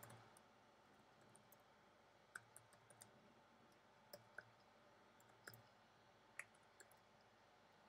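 Near silence with a few faint, scattered computer keyboard keystroke clicks as code is typed.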